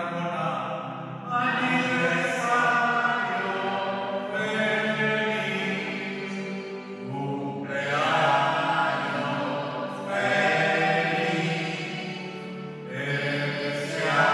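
Church hymn sung in long, slow phrases, with a new phrase beginning every few seconds.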